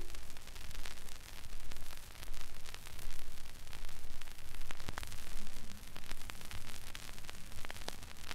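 Stylus riding the run-out groove of a 78 rpm record on a Rega Planar RP78 turntable with a Rega 78 cartridge, after the music has ended. Steady surface hiss and crackle with scattered clicks, swelling about every three-quarters of a second, once per turn of the record.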